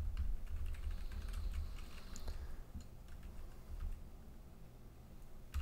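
Typing on a computer keyboard: a quick run of keystrokes for about two and a half seconds, then a few scattered key presses.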